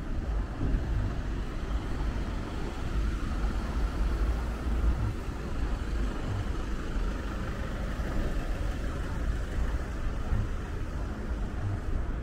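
Wind buffeting the microphone in an uneven low rumble, over a steady wash of road traffic.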